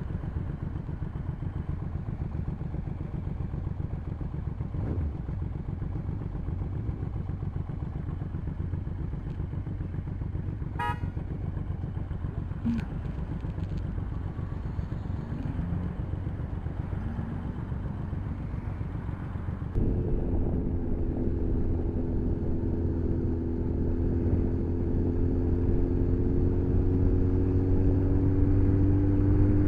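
Motorcycle engine running while riding, with wind rush. About twenty seconds in, the engine note gets louder and then climbs slowly in pitch.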